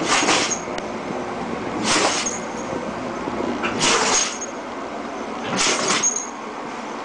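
Dog sneezing four times, about two seconds apart, each sneeze a short, sharp burst of air through the nose, during a fit of sneezing she can't stop.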